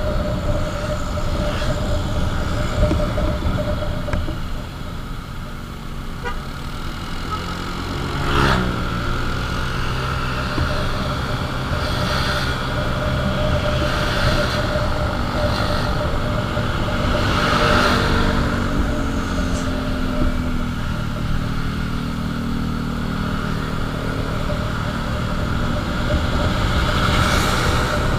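Motorcycle engine running while riding, with road and wind noise. The engine pitch drops sharply about eight seconds in and shifts again near twenty seconds, as the revs change.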